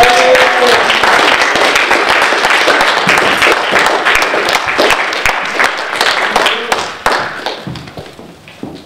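Audience applauding, with a short cheer right at the start; the clapping thins out and dies away after about seven seconds.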